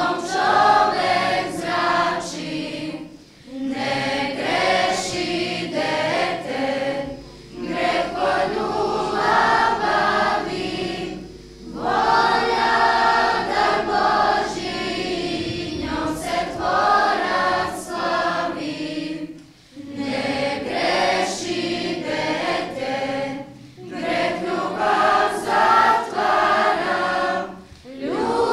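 Children's choir singing a religious song in phrases of about four seconds, each followed by a short pause for breath.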